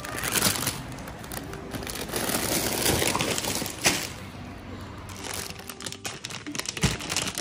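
Plastic grocery bags and food packaging rustling and crinkling as shopping is handled, with a few sharp knocks and clicks near the end.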